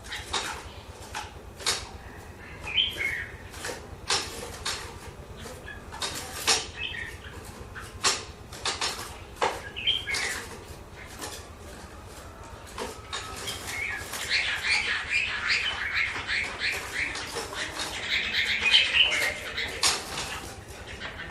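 Hwamei (Chinese hwamei laughingthrush) singing in short warbled phrases, which become a dense, continuous song about two-thirds of the way in, mixed with many sharp clicks and knocks throughout.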